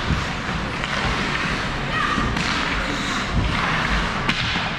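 Ice hockey play on the rink: a steady hiss of skates and sticks on the ice, with a few dull thuds against the boards about three and a half seconds in and a sharp knock near the end.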